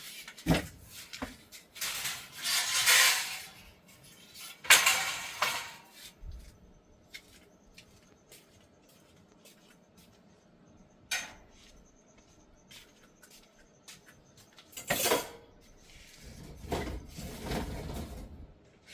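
Aluminum scoop parts and tubing clattering and scraping as they are handled, in several separate bursts of knocks and rubbing with quiet gaps between.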